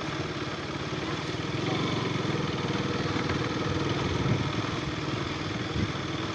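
Motorcycle engine running steadily, a little louder from about two seconds in.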